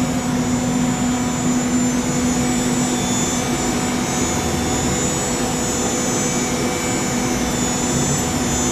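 5-axis CNC router running a program dry, not cutting: the spindle and machine run steadily, an even whir with a steady low hum and a faint high whine.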